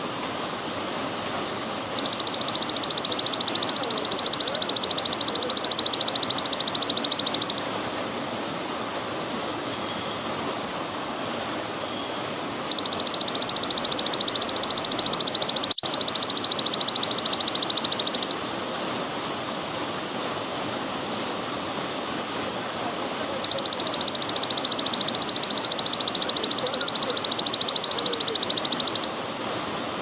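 Belalang emas (golden grasshopper) singing a loud, high, rapidly pulsing trill in three bursts of about five and a half seconds, each followed by a pause of about five seconds, over a steady trickle of water.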